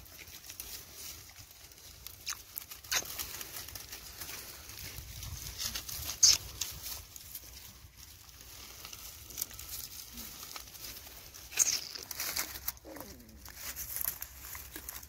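Puppies feeding from a metal bowl among dry twigs and leaves: scattered small clicks, crackles and rustling from eating and shifting about, with two sharper clicks about six seconds in and near twelve seconds.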